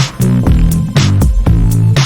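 Background music: a steady drum beat of about two hits a second over a repeating bass line.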